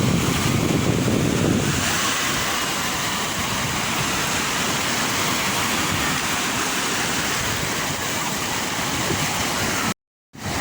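Sea waves washing, a steady rushing noise: a deep rumble for the first couple of seconds gives way to a brighter hiss. The sound cuts out for a moment near the end.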